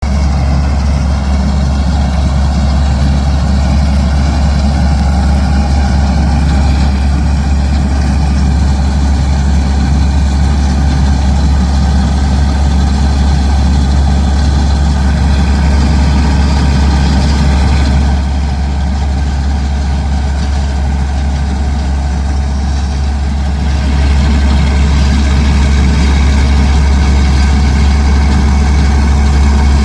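Heavy farm-machinery engine running steadily, a little quieter for several seconds past the middle.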